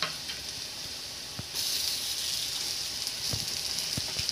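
Oil sizzling steadily around besan-and-coriander fritters shallow-frying in a non-stick pan until crisp. The sizzle grows louder about a second and a half in, with a few light clicks of a spoon and fork touching the pan.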